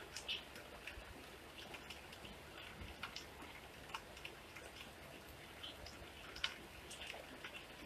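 Light rain: scattered drops ticking irregularly on hard wet surfaces over a faint, soft hiss.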